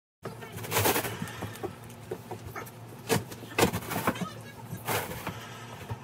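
Large cardboard box being opened and handled: the flaps rustle and scrape, with several sharp knocks and scuffs of cardboard.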